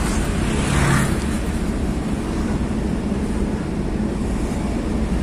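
Engine drone and road noise heard from inside the cab of an old small van while it is being driven: a steady low hum under an even rush of noise.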